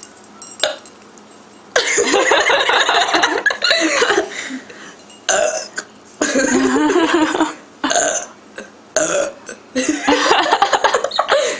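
Person burping loudly several times in a row, each burp lasting one to two seconds, brought up by gulping down a carbonated cola (Pepsi).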